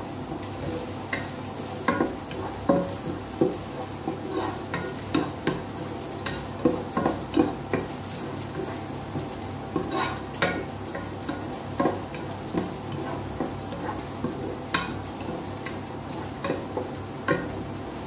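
Wooden spoon stirring onion and garlic frying in oil in a pot, with irregular knocks and scrapes of the spoon against the pot over a steady sizzle.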